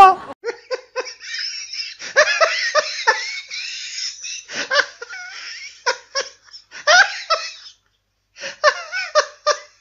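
Hearty laughter in quick repeated bursts, breaking off briefly about eight seconds in, laid in as a comic laugh effect.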